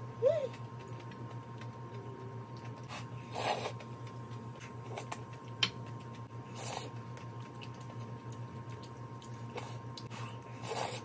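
Close-up eating sounds of tofu noodles: wet slurping and chewing in short bursts every few seconds, the sharpest just after the start with a brief squeaky note. A steady low hum runs underneath.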